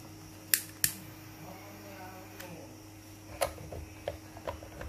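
Two sharp clicks about half a second in, then a run of lighter knocks and taps near the end, from things being handled on a wooden worktable, over a steady low hum.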